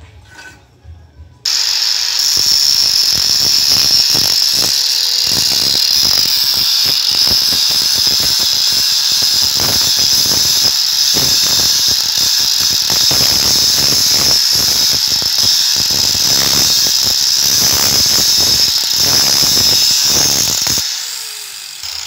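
Angle grinder switched on about a second and a half in, running with a loud, steady high whine while its disc grinds the end of a steel motorcycle front-wheel spacer bushing clamped in a vise, with a rough scraping texture throughout. The bushing is being ground shorter because it has grown too long as the bearing wore, which makes the front wheel creak. Near the end the grinder is switched off and its whine falls away as it winds down.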